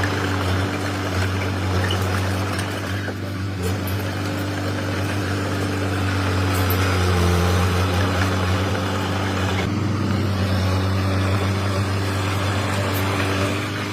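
Komatsu D21P mini bulldozer's diesel engine running steadily, its pitch shifting slightly about halfway through.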